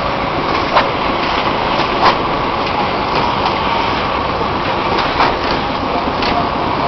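DUOMI DMJBT30 electric concrete mixer pump running with a steady mechanical noise, with sharp knocks every second or so.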